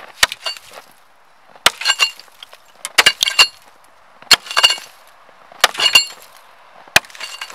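A metal-bladed hand tool chopping at built-up ice, about ten sharp strikes in small groups, each with a short metallic ring and crunch of ice breaking apart.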